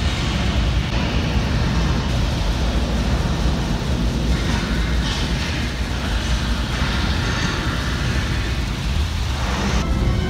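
Recorded roar of a Saturn V rocket launch played loud through a theater's speakers: a deep, steady rumble with a rushing hiss above it.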